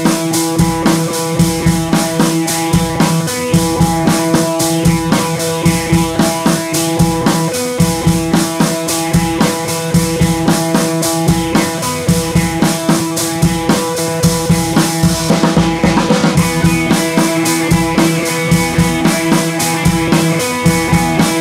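Background rock music with a drum kit playing a steady beat.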